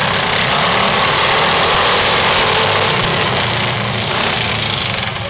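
Racing lawn mower engines running loud and steady, easing slightly near the end.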